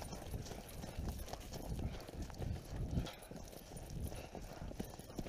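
Footsteps walking along a dirt and gravel woods track, about two steps a second, with rustling of leaves and gear.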